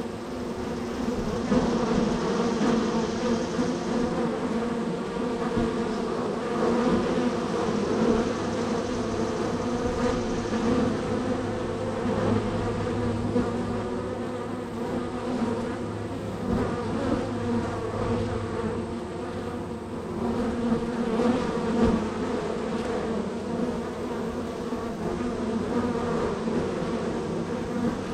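Many honey bees buzzing together at a busy hive entrance, a steady, dense hum of overlapping wingbeat tones as bees fly in and out.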